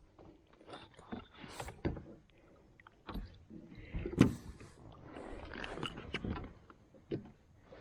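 Knocks, rubs and scrapes on a kayak while a hooked catfish is landed and handled. The knocks come at uneven intervals, with the loudest about four seconds in.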